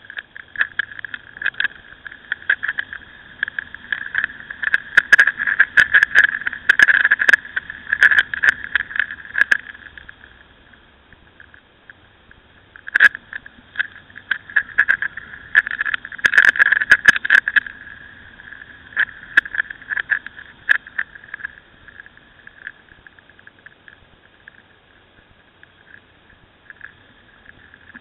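Wind buffeting and crackling on a camera mounted on a Ducati Scrambler while riding, heard muffled, with the motorcycle's engine faint underneath. The noise comes in crackling gusts and eases off for a few seconds twice.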